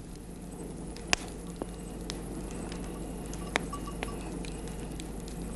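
Wood campfire crackling: burning logs giving several sharp pops over a steady low hiss, the loudest pop about a second in.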